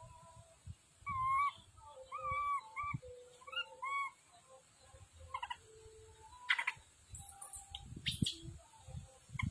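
A young macaque gives a string of about five short, wavering cries in distress while a snake is coiled around its body. After that come scattered rustles and clicks from the palm fronds.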